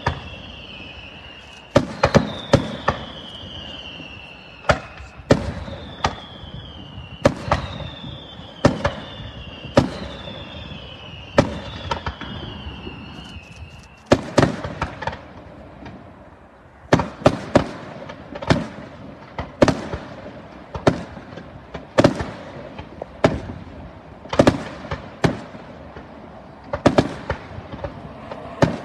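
Aerial firework shells bursting in quick succession, a sharp bang every second or so, packed closer together in the second half. Through the first half a falling whistle repeats about every second and a half.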